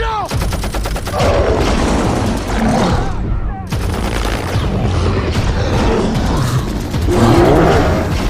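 Movie battle soundtrack: rapid machine-gun fire, densest in about the first second, over a loud orchestral score and chaotic combat noise.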